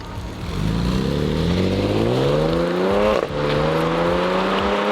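2012 Audi S5 Cabriolet's supercharged V6 accelerating hard. The engine note rises steadily, drops briefly with an upshift about three seconds in, then climbs again.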